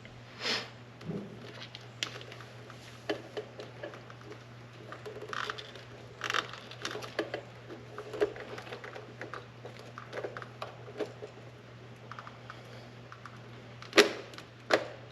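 Hands working a pod air filter and its metal clamp onto a motorcycle carburetor: scattered small clicks, taps and rustling, with two sharper clicks near the end.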